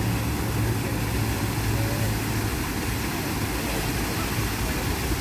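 Fountain water jets spraying and splashing down onto the paved basin, a steady rushing hiss. A low steady hum underneath fades out about halfway through.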